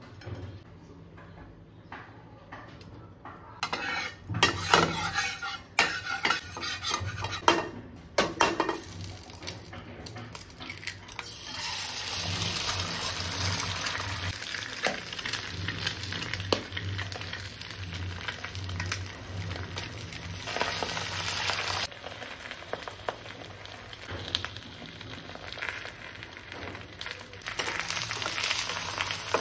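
Utensils clicking and knocking against a bowl and pan. From about twelve seconds in, eggs sizzle steadily as they fry and are stirred in the pan.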